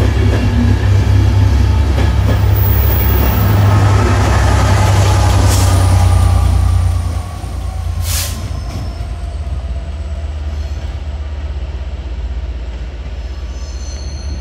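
A train running through the station close by: a heavy low rumble with a slowly falling whine, which drops away about seven seconds in, and a short hiss about eight seconds in.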